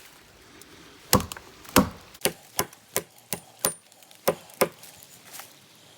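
Origin Knives Bushcrafter axe, its splitting head removed, chopping into tough beech wood while limbing: about nine quick, sharp blows at two to three a second, starting about a second in, the first two the loudest.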